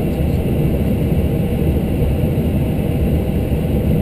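Airbus A319 cockpit noise while taxiing: a loud, even low rumble from the engines and the rolling aircraft, with faint steady high-pitched whines above it.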